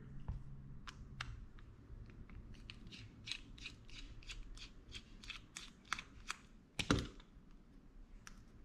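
A precision screwdriver working at a small cap on a Shimano SLX BFS baitcasting reel: a run of faint, quick metal clicks, about three a second, then a single louder knock about seven seconds in.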